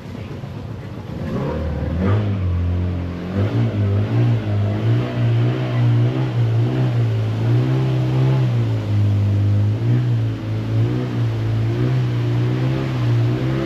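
An engine running under load, its pitch rising and falling as the throttle changes.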